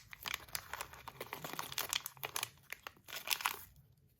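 Packaging crinkling and crackling in the hands as a parcel is unwrapped, a dense run of irregular crackles that stops about three and a half seconds in.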